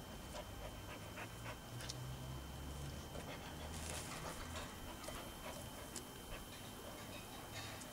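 A dog panting while it plays with a ball, with scattered light clicks and knocks.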